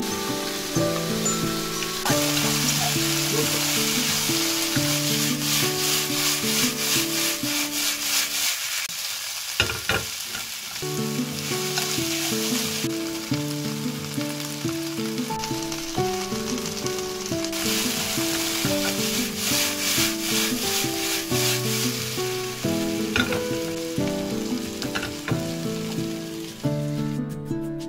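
Oyster mushrooms and sliced vegetables sizzling in hot oil in a wok as they are stirred, the sizzle loud in two long stretches and dying away near the end. Instrumental background music plays throughout.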